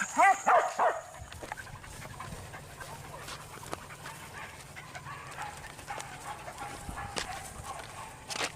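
Hunting dog yelping: a quick run of several high yelps in the first second, then quieter with scattered faint clicks.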